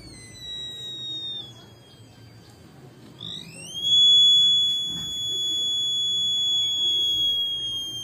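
Buzzer of a home-made BC547 transistor fire alarm sounding as a match flame heats its sensor. A faint high tone fades and slides down in pitch, then about three seconds in the tone climbs in pitch, holds steady and loud, and drifts slightly lower near the end.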